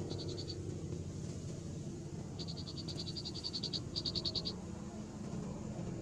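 A chorus of frogs croaking steadily, with rapid high chirping trills breaking in in short bursts near the start and again around the middle, the loudest of them about four seconds in.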